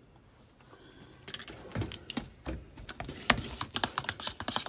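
A utensil stirring thick mashed potatoes in a stainless steel pot, with quick clicks and scrapes against the pot, getting faster and louder in the second half. The potatoes are being beaten, with a duck egg yolk going in.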